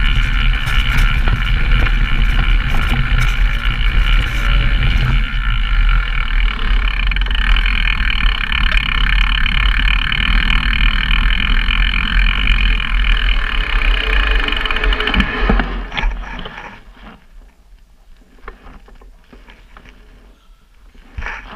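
Downhill mountain bike running down a trail, heard on the bike-mounted cameras: loud, steady tyre and riding noise with a low rumble. About sixteen seconds in it drops away to a much quieter stretch with scattered clicks, then builds again right at the end.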